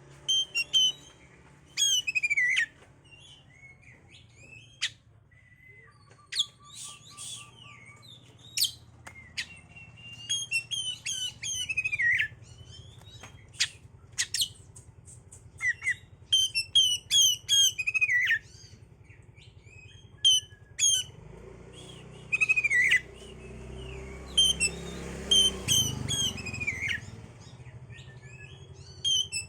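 Oriental magpie-robin (kacer) singing in bouts of quick chirped phrases with short falling whistles, broken by pauses, over a low background rumble that swells in the last third.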